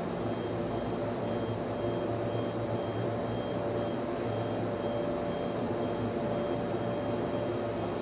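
Server room ambience: the steady whirring drone of server and network switch cooling fans and equipment hum, with a faint high tone that keeps coming and going.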